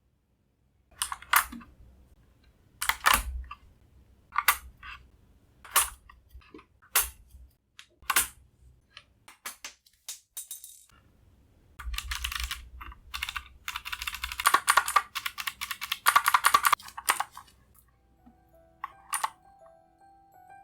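Sharp plastic clicks and clacks from keycaps and Gateron switches being pulled from a Keychron K10 hot-swap mechanical keyboard. There are about six separate clicks, then a longer run of rapid clattering clicks. Soft background music comes in near the end.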